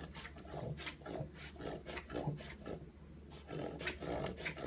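A dog's reverse sneeze: repeated rasping inhalations pulled hard through the nose, about four a second, that sound like a pig.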